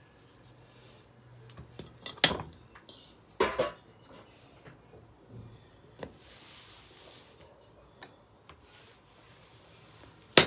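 Kitchen dishes and utensils knocking and clinking as they are handled and set down on the counter: a few sharp clatters, the loudest about two and three and a half seconds in and another just before the end, with a short rustle around six seconds in.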